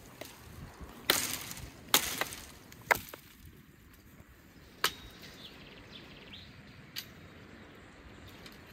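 Chopping wood: three sharp chops about a second apart, each with a short splintering tail, then two single cracks further on. Faint birdsong chirps in between.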